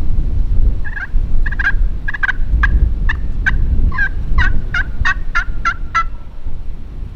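Wild turkey gobbling, two gobbles in a row, each a fast rattling run of notes. Loud wind buffets the microphone throughout.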